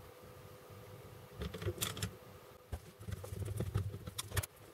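Light clicks and taps of a small screwdriver and small parts being handled on a workbench, starting about a second and a half in after a quiet moment.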